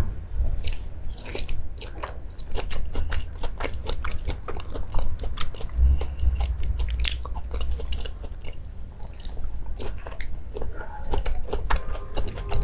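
Close-miked chewing and biting of food, with many short crunching clicks.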